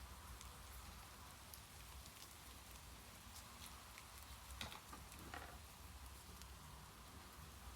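Faint, steady rain hiss with scattered ticks of drops, and a couple of small clicks about halfway through.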